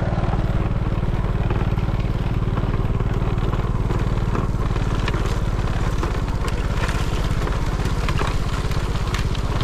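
A small step-through motorbike's engine running steadily at low speed, with a fine, even pulsing and scattered light clicks over it.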